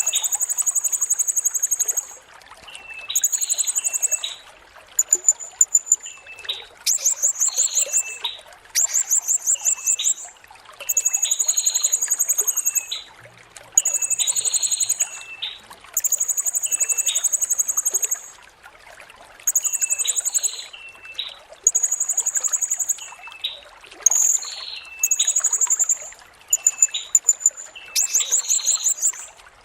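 Blue-crowned hanging parrot (serindit) singing: very high, shrill, rapidly pulsed trills, each lasting one to two seconds, repeated over and over with short gaps. Shorter, lower chirping notes fall between the trills.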